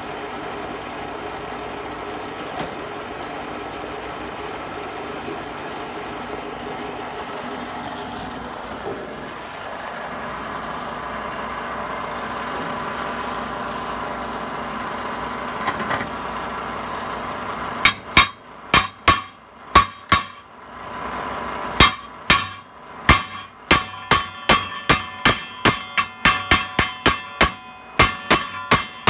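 Miller Thunderbolt 250 transformer stick welder (buzz box) humming steadily at idle between welds. About two-thirds of the way through, sharp ringing metal strikes take over, irregular at first and then about two a second.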